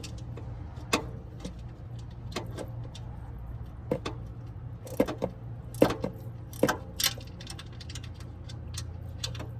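Scattered metallic clinks and knocks of tools being used to tighten a part during an oil change, irregular and a second or so apart, over a steady low hum.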